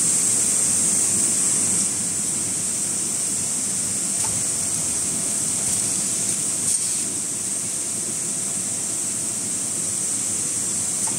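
Steady running noise of an automatic maxi roll (paper towel) production line: conveyor and machine drive noise with a constant high hiss, and a faint tick a little past the middle.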